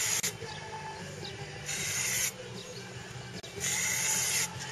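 Aerosol spray-paint can with a trigger-grip handle hissing in short bursts: one ending just after the start, then two more of about half a second to a second each, roughly two seconds apart. A steady low hum runs underneath.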